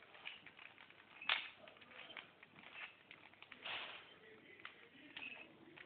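Rubik's cube being turned by hand: the plastic layers click and rattle in quick, irregular turns, with the sharpest click about a second in and a brief rubbing rasp a little later.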